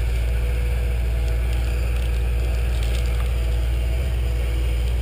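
Off-road competition truck's engine running steadily, low and even, as the truck works over a rocky climb.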